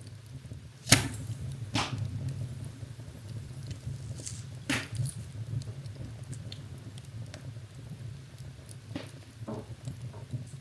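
Wood fire burning in a fireplace: a steady low rumble with sharp crackles and pops from the burning wood, the loudest about a second in and a few more scattered through.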